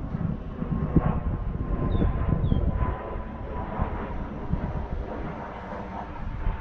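Wind buffeting the microphone with a low rumble, over the faint, steady whine of an RC Carbon Cub's electric motor in flight. Two short high chirps about two seconds in.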